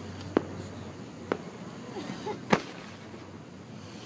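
Fireworks going off: three sharp bangs, about half a second, one and a half seconds and two and a half seconds in, the last the loudest.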